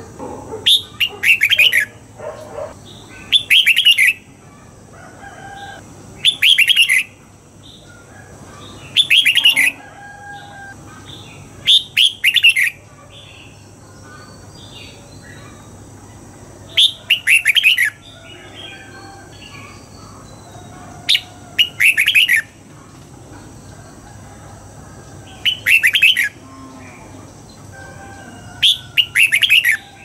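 Red-whiskered bulbul singing: about nine short, loud phrases spaced a few seconds apart, each made of two quick bursts of notes.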